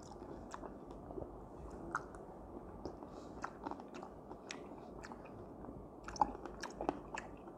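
A man chewing and eating close to the microphone, spooning soaked dried-fruit compote (khoshaf) from a bowl. There are many small scattered clicks of mouth and spoon.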